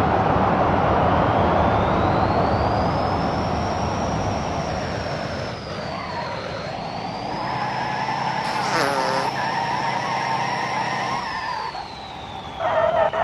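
Off-road truck engine running hard, with a thin high whine above it that rises, holds, dips briefly and falls away near the end.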